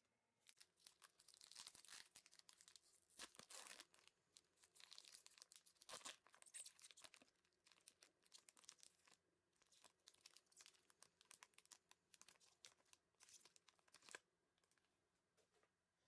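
Foil trading-card pack being torn open and crinkled: a run of crackling tears and rustles that stops about two seconds before the end.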